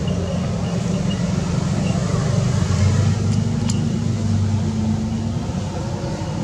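A low, steady engine hum, like a motor vehicle running close by, swelling a little in the middle and easing toward the end.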